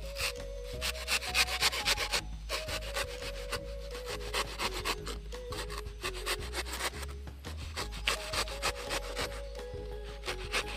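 Knife blade scraping and scoring the shell of a young coconut in quick, irregular, repeated strokes, with faint background music.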